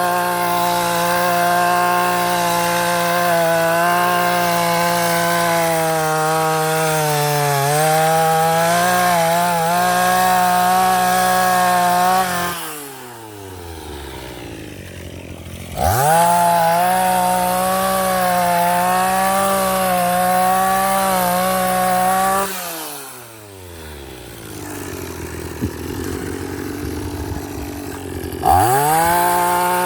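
Vulcan earth auger's small two-stroke engine running at full throttle while drilling a post hole, its pitch sagging and wavering under load. It drops to idle about 12 seconds in, revs up again around 16 seconds, falls back to idle at about 22 seconds and revs up once more near the end.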